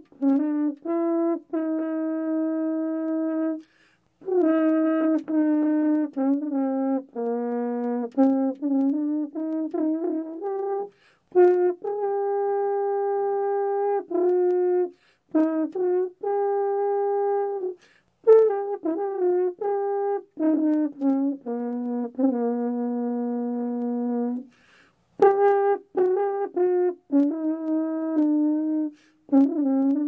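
French horn played solo: a melodic passage of long held notes and quicker runs of moving notes, in phrases broken by short pauses for breath every few seconds.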